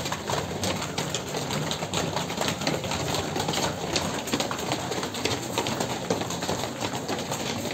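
Many sneakers slapping and scuffing quickly and irregularly on a concrete floor as a group runs a footwork drill.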